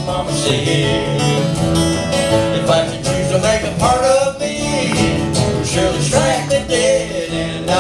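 Live folk-rock song: two acoustic guitars strummed, with two men singing into microphones.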